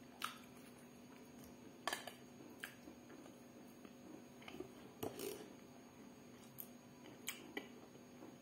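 Faint eating sounds: about ten soft clicks and taps, scattered irregularly, with quiet chewing, over a low steady hum.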